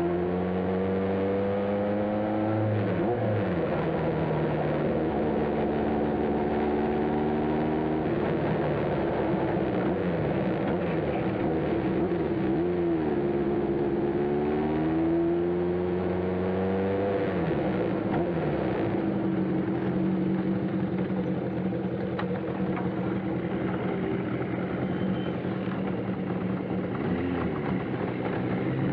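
Kawasaki motorcycle engine heard from the rider's seat, running at low speed. Its pitch rises and falls several times with the throttle in the first half, then it settles into a steady idle.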